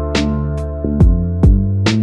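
Background music with a steady beat: plucked guitar chords over a drum pattern.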